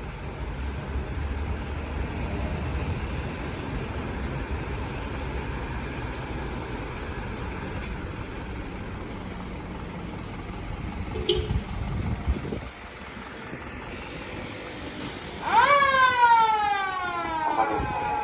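Emergency vehicle's engine running with a steady rumble that drops away about twelve seconds in, a brief tone just before. Near the end its siren sounds loudly, rising quickly and then gliding down in pitch.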